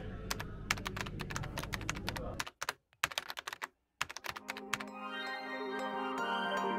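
Rapid keyboard-typing clicks over a low hum, thinning out about two and a half seconds in and followed by a brief near-silent gap. Soft background music with sustained tones then fades in and builds.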